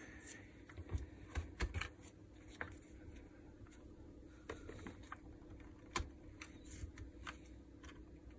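Faint, scattered clicks and taps of small plastic and metal parts being handled while a cordless hammer drill is taken apart, with a sharper click about six seconds in.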